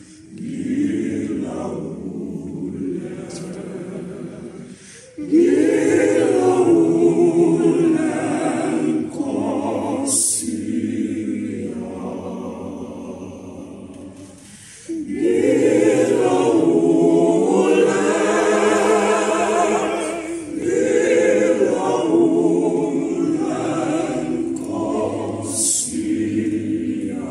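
Mixed choir singing a cappella in several parts, in long phrases that swell and fade, with full-voiced entries about five seconds in and again about halfway through.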